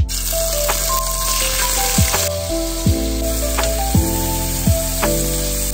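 Shrimp frying in hot oil in a wok, a steady sizzle. Background music with a low drum beat about once a second plays over it.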